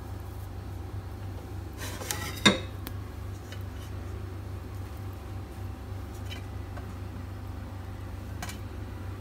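A short clatter of kitchenware about two seconds in, ending in one sharp clink: a metal steamer bowl knocking against a glass baking dish. A few light taps follow as cauliflower florets are set in the dish, over a steady low hum.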